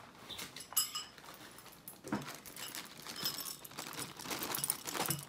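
Dry cereal pouring from a box into a bowl: a dense rattle of small pieces clattering against the bowl, with a single ringing clink about a second in.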